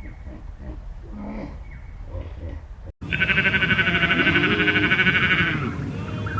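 Farm animal bleating: one long, wavering bleat starts about three seconds in and lasts over two seconds. Fainter, lower animal calls come before it.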